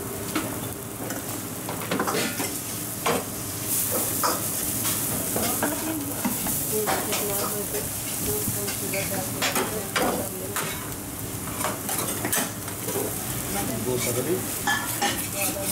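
Uttappams and a dosa sizzling in oil on a hot flat griddle, with a metal spatula scraping and tapping against the plate many times.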